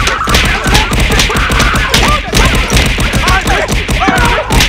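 A rapid barrage of cartoon-style crash and thump sound effects, several hits a second, over music, with shouting voices.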